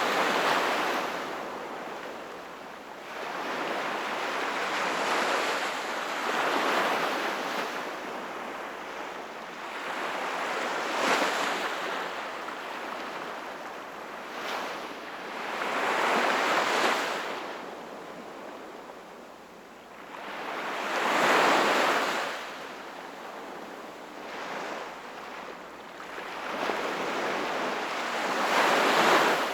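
Sea waves coming in one after another, each a swell of surf hiss that rises and dies away every few seconds.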